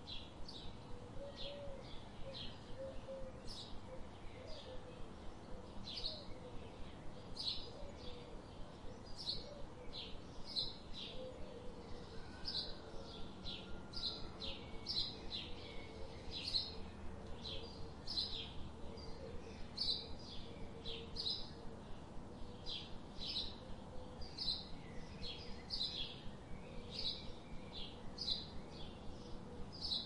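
A small bird chirping over and over, short high calls about one and a half a second, over a steady outdoor background hiss.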